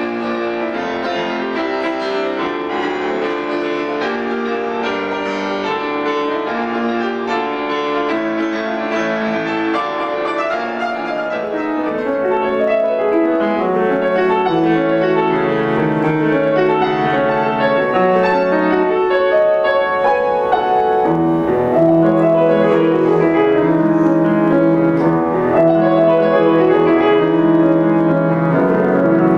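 Grand piano played solo, classical music. A little over ten seconds in, one piece gives way to another that is louder and uses more low notes.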